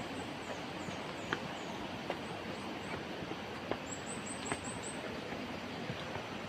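Steady outdoor rushing noise with very high, thin chirps, a few spaced out in the first couple of seconds, then a quick run of about six near the middle. A few faint clicks come through now and then.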